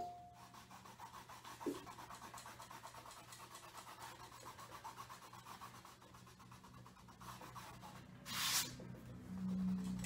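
Pencil drawn across a stretched canvas: a fine, fast scratching as the point drags over the canvas weave, with a louder brief swish near the end.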